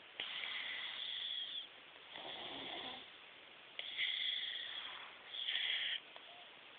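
Snoring: four noisy breaths with short pauses between them, each lasting from about half a second to a second and a half.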